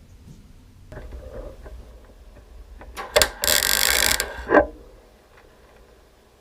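A welding arc crackling in one burst of about a second, tacking a weldable captive nut into the Beetle's inner wheel arch panel, with a click at its start and end and light handling knocks before it.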